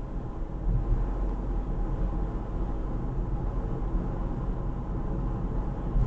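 Steady road and engine noise inside a moving car: a low rumble with a faint hiss above it.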